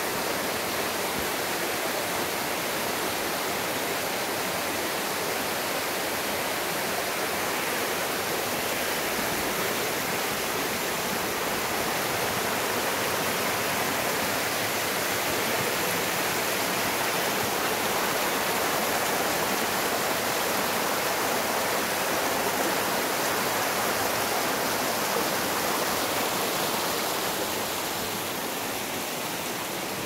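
Mountain stream rushing over rock slabs in small cascades: a steady, even rush of water that eases slightly near the end.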